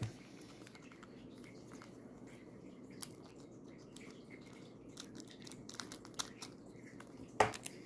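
Faint crinkling and ticking of a foil Pokémon booster pack wrapper being handled, with a sharper crackle about three seconds in and a louder one near the end.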